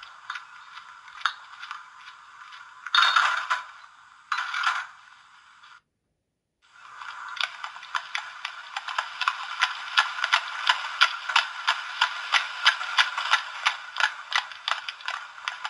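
Sound effects from the Hornby TTS sound wagon's small built-in speaker, thin with no bass. A rattling effect with two louder bursts cuts off after about six seconds. After a short pause a new effect starts: a steady run of evenly spaced mechanical clicks over a hiss.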